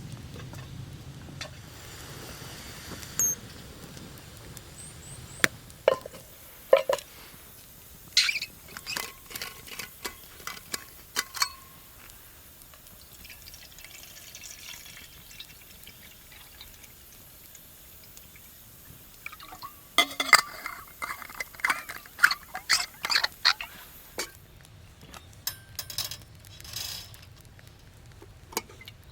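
Camp cookware being handled: scattered clinks and knocks, some of them ringing briefly, with liquid being poured. The handling comes in two spells, one in the first half and another past the middle.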